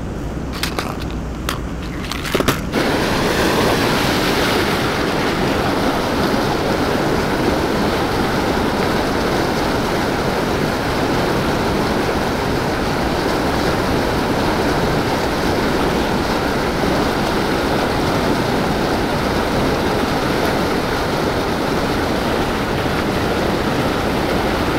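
Steady rush of churning white water in a fast river current. A few sharp clicks and knocks come in the first couple of seconds, before the rush of water sets in.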